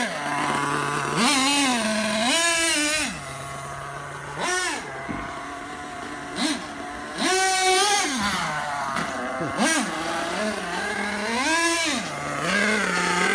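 Dynamite .28 nitro engine in a Losi 8ight-T RC truggy revving up and down as the truck is driven, now broken in. Its pitch rises and falls every second or two, with quieter stretches around the middle.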